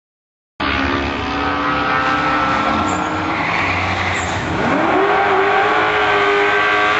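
Drag racing cars idling at the starting line. The sound starts abruptly just under a second in. About four and a half seconds in, one engine revs up sharply and holds at high revs.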